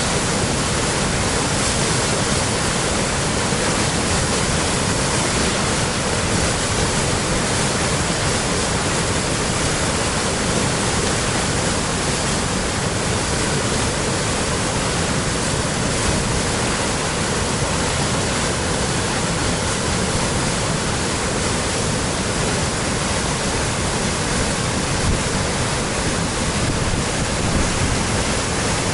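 Spring waterfall on the Pryamaya river, the water falling with a steady, loud rush that stays even throughout.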